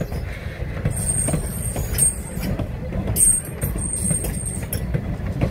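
Train of open-air passenger cars and a caboose rolling past close by: a steady rumble of steel wheels on the rails with scattered clicks over the rail joints. A thin, high wheel squeal comes in twice, once from about a second in and again past the three-second mark.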